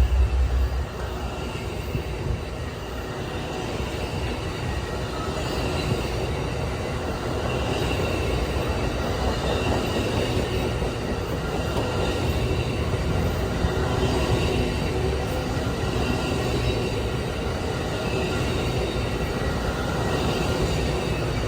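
Passenger train cars rolling past at speed: a steady rumble of steel wheels on rail with faint, wavering wheel squeal. A heavier low rumble drops away about a second in.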